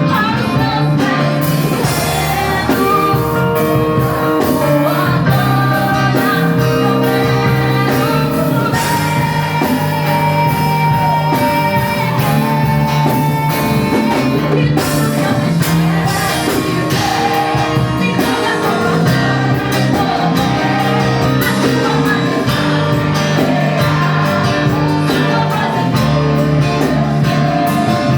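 A song playing: a singing voice over guitar and band accompaniment with a steady bass line.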